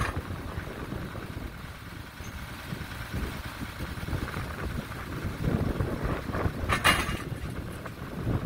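Diesel engine of a Morooka MST800 tracked post driver running, with wind on the microphone and two sharp knocks, one right at the start and one about seven seconds in.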